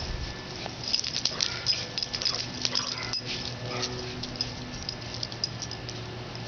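A Miniature Pinscher scuffling and pouncing in the grass while going after a ball, with a flurry of quick scuffs and clicks from about a second in until about four seconds in.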